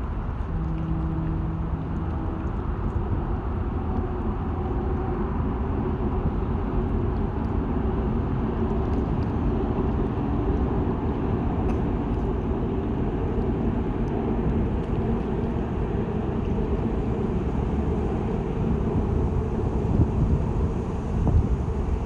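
A train crossing a long railway bridge over the river: a steady low rumble, with wind buffeting the microphone near the end.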